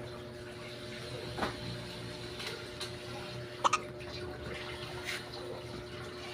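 Baby hiccuping: a few short, sharp hiccups a second or two apart, the loudest a quick double about halfway through, over a steady low hum.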